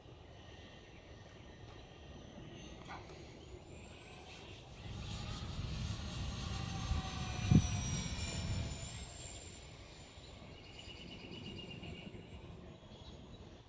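Radio-controlled C-130 Hercules model's four electric motors and propellers whining in flight. The whine swells to a peak about halfway through as the model passes and drops slightly in pitch as it goes by. A short thump comes at the loudest point.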